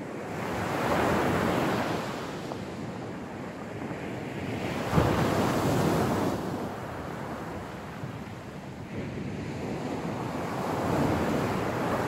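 Sea waves breaking on the beach, three surges that swell and fade, with wind on the microphone. A short sharp knock about five seconds in, as the second surge starts, is the loudest moment.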